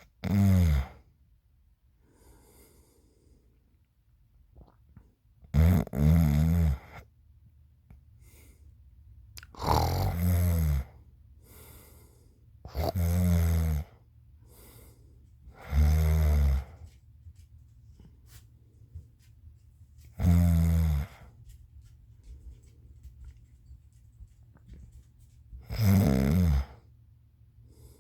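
Loud snoring: about seven long, rasping snores of a second or so each, coming every three to six seconds, with a faint low hum in the quiet gaps between them.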